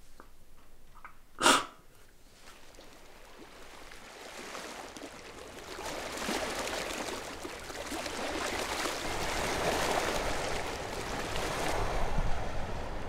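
A woman crying quietly, with one loud sharp sob through the nose about a second and a half in. Then the rushing of wind and waves on open water fades up and grows steadily louder.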